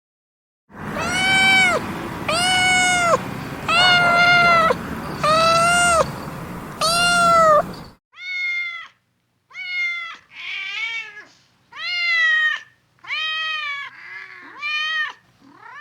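Domestic cat meowing over and over, about a dozen meows, each rising and then falling in pitch. The first five, each about a second long, sit over a steady background hiss. After a brief gap a cleaner run of shorter meows follows at a quicker pace.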